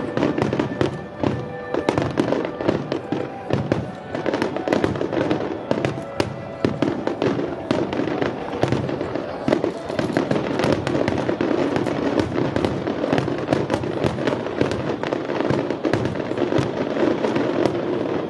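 A rapid barrage of aerial firework shells bursting, many bangs a second overlapping without a break. Music can be heard underneath, most clearly in the first few seconds.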